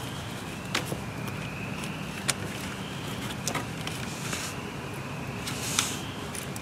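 A 12 mm wrench working the air-line fittings on a Land Rover LR3's front transfer relief valve: a few short, irregularly spaced clicks over a steady low background hum.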